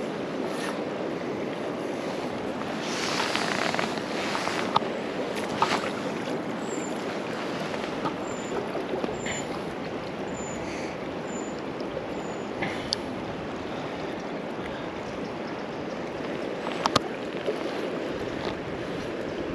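River Dee running steadily past, with a swell in the rush about three seconds in and a few sharp short knocks or splashes. A series of faint, short high chirps comes through the middle.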